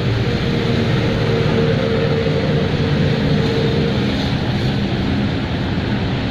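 Wind buffeting the phone's microphone: a loud, steady rush that is heaviest and most unsettled in the low end. A faint steady tone sits underneath until about four seconds in.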